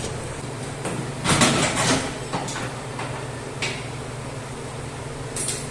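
Workshop clatter of metal parts being handled and knocked, with a brief louder burst of scraping and clanking a little over a second in and a few shorter knocks later, over a steady low hum.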